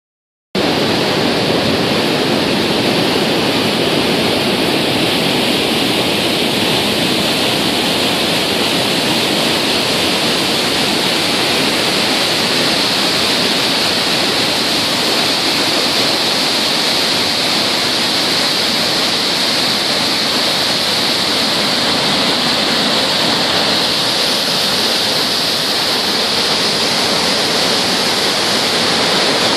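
Loud, steady rush of water released through the Ocoee No. 2 dam and churning into whitewater below.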